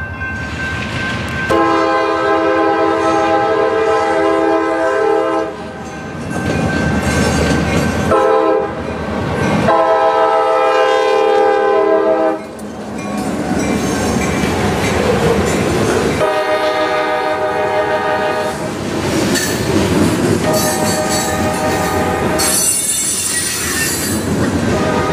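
CSX diesel freight locomotive's air horn sounding a series of blasts at a grade crossing: a long one, a short one, then more long ones. Under the horn, the train rumbles and clatters over the crossing, and a high wheel squeal comes from the passing freight cars near the end.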